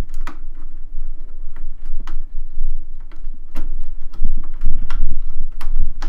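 Irregular clicks, taps and rubbing as a 6+2-pin PCIe power cable with plastic connectors is wiggled and pushed through a tight gap in a computer case, past a SATA cable.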